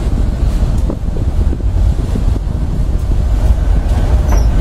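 Wind buffeting the microphone over the steady low rumble of a passenger train running on the rails, heard from an open carriage window.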